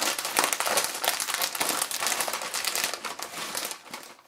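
A crisp packet being crumpled and crinkled: a dense crackle of plastic that is strongest for the first four seconds and then eases off.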